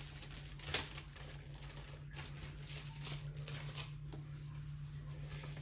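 Faint rustling and light taps of kit packaging being handled, with one sharper tap about a second in, over a low steady hum.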